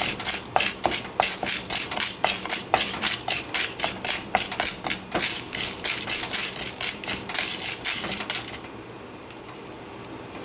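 Wooden spatula stirring chana dal and urad dal frying in oil in a metal kadai: quick scraping strokes against the pan, several a second, while the dals roast toward light brown. The stirring stops about eight and a half seconds in.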